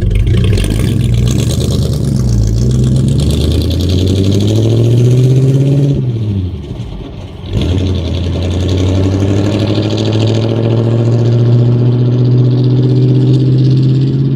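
1950 Ford F1's flathead V8 (8BA) pulling under way: engine speed climbs for several seconds, drops away briefly about halfway through, then picks up and rises slowly and steadily again.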